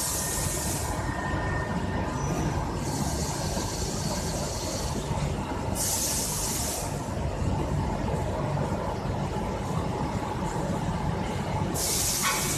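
Warping machine running in a textile mill: a steady mechanical drone, broken four times by short hisses of air.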